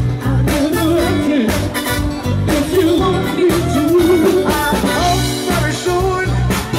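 Live dance cover band playing, with a steady beat of drums and bass under a wavering melody line.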